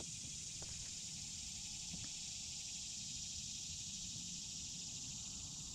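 Steady high-pitched drone of insects in the trees over a low rumble, with a couple of faint clicks about half a second and two seconds in.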